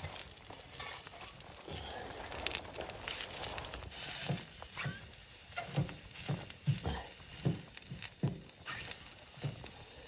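Food sizzling in a pan, with a series of soft, irregular knocks from about four seconds in.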